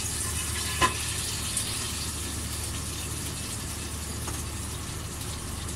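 Steady kitchen noise: a rushing hiss over a low hum, with one sharp click about a second in and a couple of faint ticks later.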